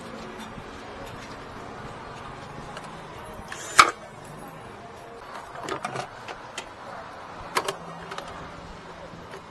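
Sharp clicks and light knocks of a washing machine's plastic cover panel and parts being handled and fitted back, the loudest click about four seconds in, over a steady low hum.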